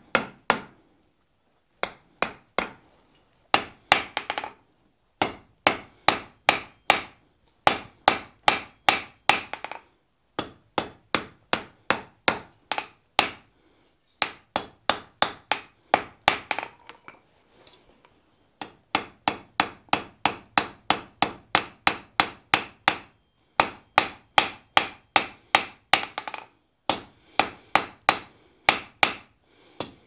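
Hand hammer striking a red-hot steel bar on an anvil in runs of quick blows, about two to three a second, with short pauses between runs; many blows leave a brief high ring. The smith is drawing a taper into the bar and rounding up a shoulder for the latch's pivot.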